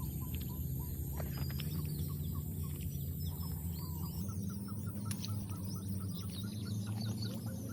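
Chickens clucking in a rapid run of short repeated calls, over a steady low hum.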